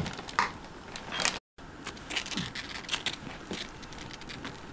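Rustling, scratching and soft clicks as a ferret clambers over and noses into a nylon fabric bag, with a brief break in the audio about a second and a half in.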